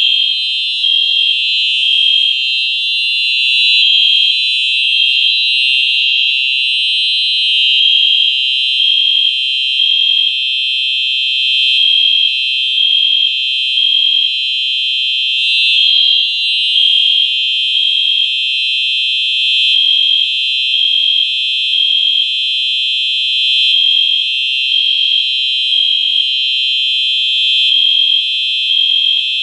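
Simplex 4903-9241 fire alarm and the Genesis on the same setup sounding together without a break, set off by a pulled pull station: one steady, loud, high-pitched horn tone.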